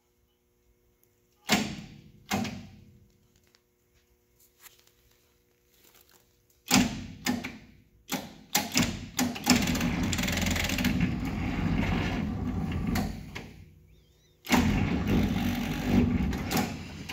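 Starter of a 1959 Case 800 diesel tractor engaged on too weak a battery: two clicks about a second and a half in, then two long spells of the starter straining without turning the engine over, the second starting about fourteen seconds in. There is not enough battery power to crank the engine.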